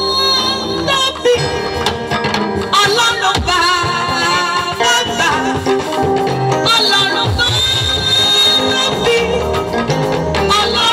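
Live gospel music over a loud PA: a woman sings lead into a microphone with a choir, backed by drums and keyboard.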